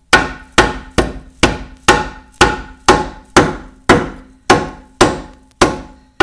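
Hammer tapping a car's front wishbone up from below, driving the new ball joint stud into the steering knuckle: about thirteen even, sharp strikes, roughly two a second, each ringing briefly.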